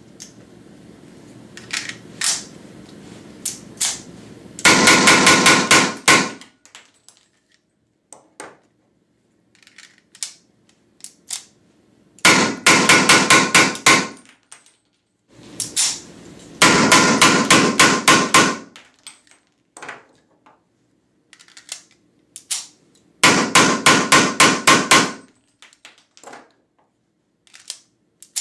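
Weihrauch HW94 blank pistol firing 9mm P.A.K. blank cartridges (SK Schönebeck) in four rapid strings of shots, each about a second and a half long. Scattered clicks of gun handling come between the strings.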